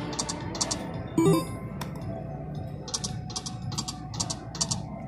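Konami Gorilla Riches video slot machine spinning: a run of short, bright ticks about three a second over the machine's background music, with one brief louder tone about a second in.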